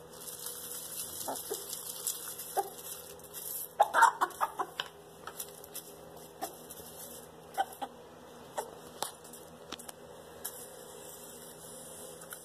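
Chickens clucking as they feed, with short sharp pecking taps scattered throughout and a louder run of clucks about four seconds in.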